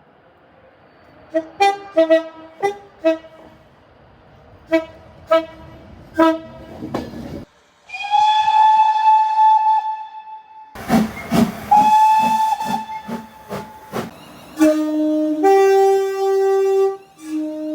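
Train horns sounding in a string of separate clips: first about nine short toots, then a long single-note blast, then a noisy stretch of train running noise with another single-note blast, and near the end long blasts of a multi-note chord horn.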